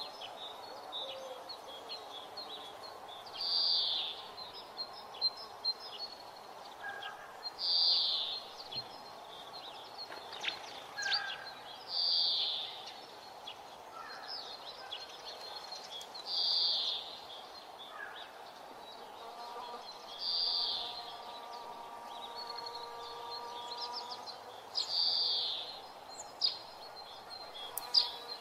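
Birds calling in open parkland: a high call about a second long repeats about every four seconds, with short chirps between, over a steady background hum.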